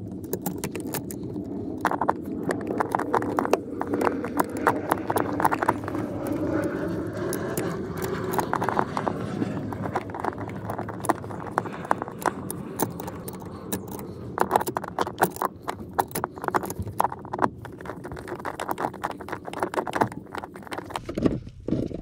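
Ratchet with a swivel socket clicking in quick runs, with metal clinks and rattles, as the clutch pedal's mounting bolt is lined up and worked in. The clicking comes in two long stretches, one in the first half and one in the second, with a short lull between them.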